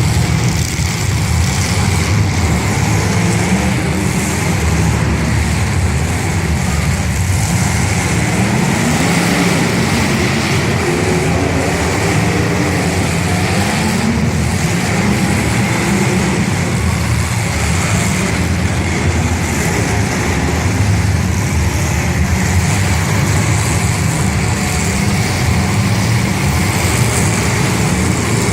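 Demolition derby cars' engines running loudly and steadily, with engine pitch rising and falling at times.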